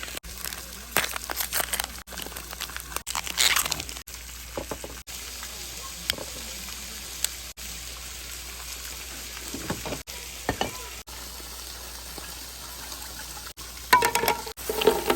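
Food sizzling in a frying pan on a gas camping burner, a steady hiss with scattered light clicks and knocks of utensils.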